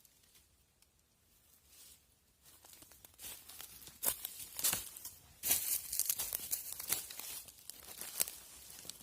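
Rustling and crackling, faint at first and growing louder about three seconds in, with many sharp crackles.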